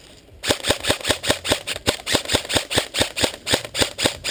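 Airsoft gun firing a fast, even string of sharp shots, about six a second, starting about half a second in.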